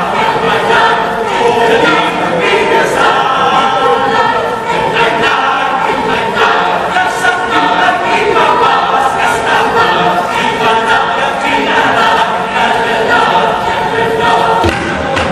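Mixed choir of men's and women's voices singing in several parts, holding chords.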